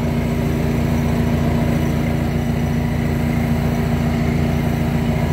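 An engine idling steadily, with a fast, even low beat.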